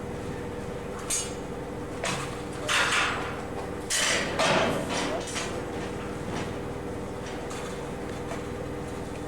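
CRAM-A-LOT HX-72-W baler running with a steady machine hum, broken by several loud clattering, crunching noises between about two and five seconds in as material is handled in the machine.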